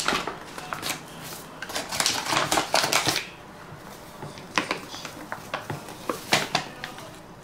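Paper flour bag crinkling and rustling as flour is tipped out of it into a plastic mixing bowl, with scattered sharp clicks and knocks of handling.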